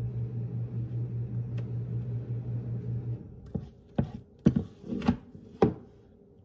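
A steady low hum cuts off about three seconds in. Then about five sharp clacks follow as a plastic ladle knocks against the mixing bowl and baking tray while thick rice-flour batter is scooped and poured into banana-leaf molds.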